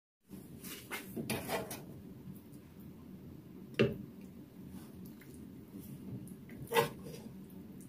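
Tableware handled on a table: a few light clicks and clatter early on, then two sharp knocks about three seconds apart, over a steady low hum.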